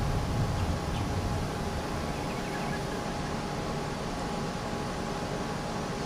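Steady outdoor background noise, with wind rumbling on the microphone for the first second or so.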